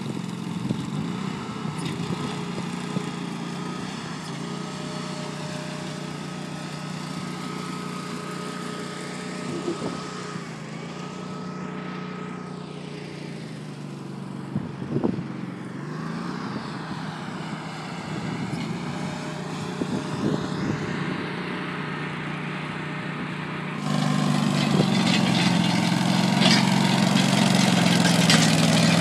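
Small engine of a walk-behind trencher running steadily, louder from about 24 seconds in.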